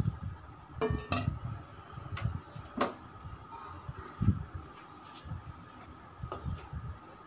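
Scattered light metal clinks and knocks as an aluminium karahi is covered with its lid, with one sharper clink about three seconds in and a low knock a little after four seconds.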